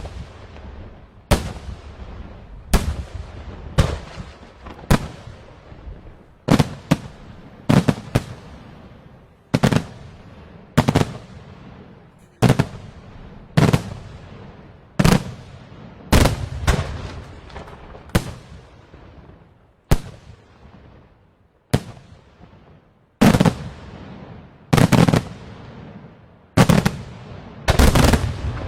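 Firecrackers going off one after another: about two dozen sharp bangs, roughly a second or so apart, some in quick pairs, each followed by a fading echo.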